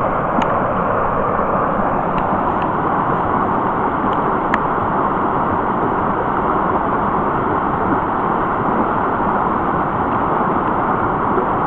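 Brook water rushing steadily, an even loud hiss with a few faint short clicks in the first few seconds.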